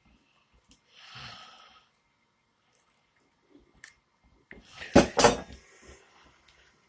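Two loud, sharp plastic cracks close together about five seconds in: the Volvo V70's handbrake trim surround snapping on its clips as it is prised out. A soft breathy exhale about a second in.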